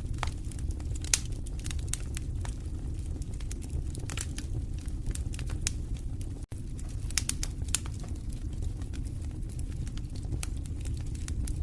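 Wood fire in a fireplace crackling, with frequent sharp snaps and pops over a low steady rumble of the flames. The sound cuts out for an instant about six and a half seconds in.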